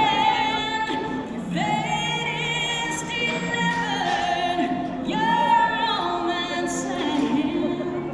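Music with singing: a voice holding long notes with vibrato, one after another.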